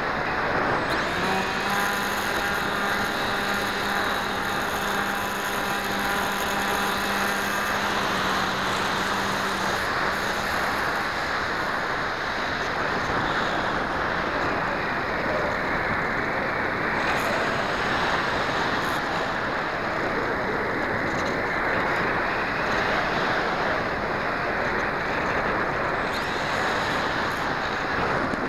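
Steady rushing wind noise on the microphone of an airborne keychain camera. For about the first ten seconds a steady hum with overtones sounds over it, then stops.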